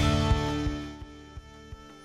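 Background music fading out, its loudness dropping steeply over about the first second and leaving faint lingering notes.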